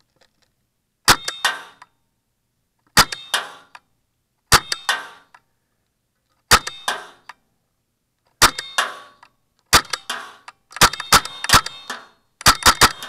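Tiberius T15 unregulated blowback paintball marker firing First Strike rounds on compressed air. Each shot is a sharp crack with a metallic clanging ring and a second sharp knock a fraction of a second later. Six single shots come one to two seconds apart, then a quicker string of shots in the last two seconds.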